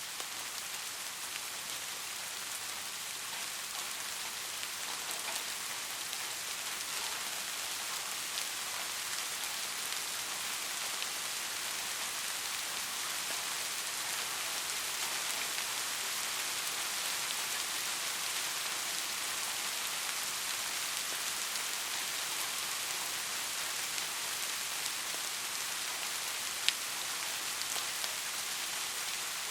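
Heavy rain falling steadily, an even hiss with scattered drop ticks, building slightly. A single sharp tick sounds near the end.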